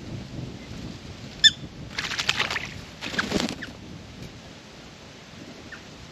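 A single short, sharp bird call note, then two quick bursts of splashing as a small bird bathes in a birdbath, flicking water with its wings.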